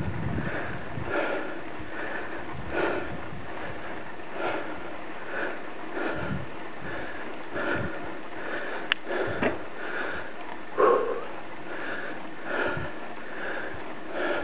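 A cyclist's heavy breathing while pedalling uphill, a breath about every second and a half. A single sharp click comes about nine seconds in.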